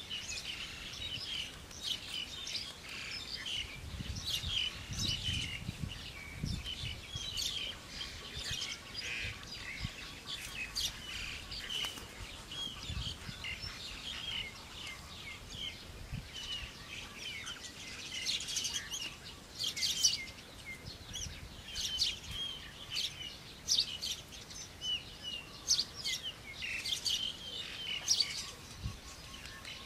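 Many birds chirping and calling, short high notes coming thick and fast, with a few soft low thumps about four to seven seconds in.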